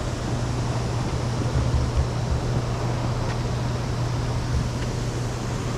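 A steady low mechanical hum over a constant rushing noise, with a few soft low thumps about two seconds in.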